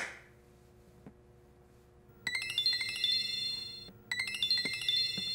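Mobile phone ringing for an incoming call: a chiming ringtone of quick, high bell-like notes that starts about two seconds in and plays its short phrase twice.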